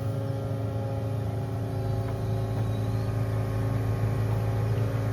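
Kubota KX080 mini-excavator's diesel engine running at a steady pitch as it digs.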